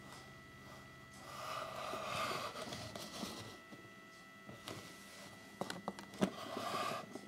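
Cloth-gloved hands handling a cardboard box: two soft rubbing swells, one about a second in and one near the end, with a few light clicks and taps in between.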